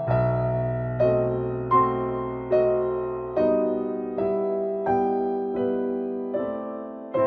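Background music: slow, gentle piano, a note or chord struck about every second and left to fade.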